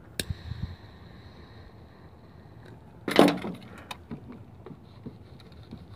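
Mini torch held to a cut zip-tie end: a sharp click, then a steady faint hiss of the flame that stops about two and a half seconds later. A brief louder sound follows about three seconds in, then light clicks.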